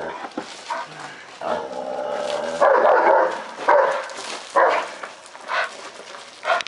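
Akita barking repeatedly on the leash, about once a second, one bark drawn out longer, at a helper holding a bite roll in protection training.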